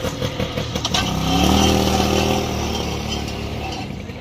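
A vehicle engine, pulsing evenly at first, revs up about a second in and then runs on steadily, slowly fading.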